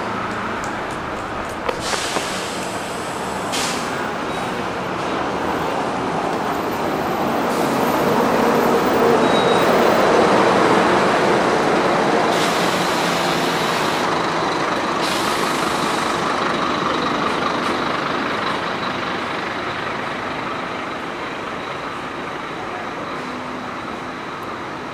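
City bus driving past close by, its engine and tyres growing louder to a peak about ten seconds in and then fading away. A few short hisses of compressed air come from it along the way.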